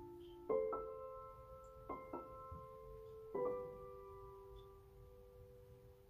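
Soft background piano music: a few notes and chords struck, the last chord held and slowly fading.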